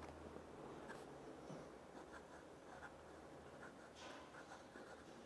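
Montblanc Meisterstück 146 fountain pen's fine gold nib writing on Rhodia dot-grid paper: faint, light scratching with a string of small ticks as the strokes start and stop.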